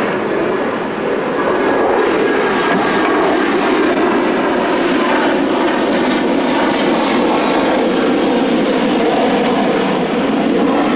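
A small boat's outboard motor running steadily, an unbroken engine drone.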